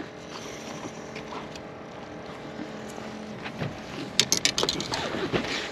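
Steady faint hum and wind on a small fishing boat, with a quick clatter of sharp clicks about four seconds in.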